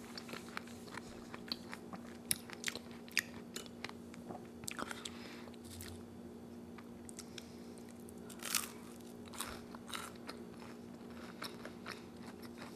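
Close-miked chewing of crunchy churros dipped in chocolate: crisp crunches and wet mouth clicks, busiest in the first few seconds, then sparser.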